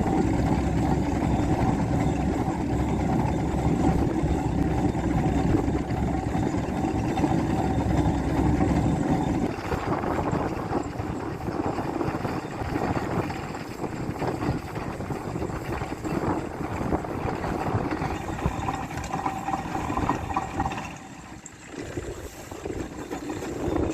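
Steam ploughing engine working, a steady mechanical running sound with a held tone; its deep low rumble drops away about nine seconds in.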